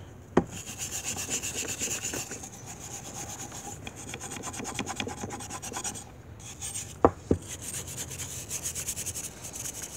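Steel wire brush scrubbing the rust off a vintage Mann Edge Tool & Co. axe head, in quick rasping back-and-forth strokes of bristles on steel, with a short pause about six seconds in. There is a sharp knock just after the start, and two more close together about seven seconds in.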